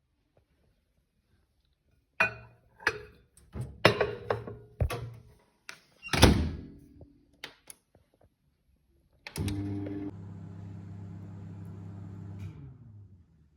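A run of knocks and clatters, the loudest a thump about six seconds in. Then a small electric motor hums steadily for about three seconds and winds down.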